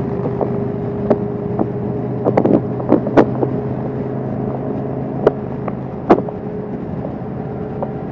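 Kawasaki Vulcan S 650's parallel-twin engine running at a steady speed, a constant drone with wind noise over it. Several short sharp knocks are scattered through, a cluster between about two and three and a half seconds in and two more around five and six seconds in.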